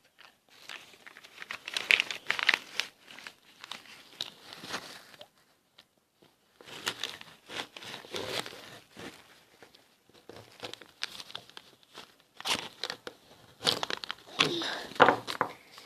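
Cut-open plastic correction pen being handled and pulled apart, with irregular crackling and crinkling in bursts and brief pauses about five and ten seconds in.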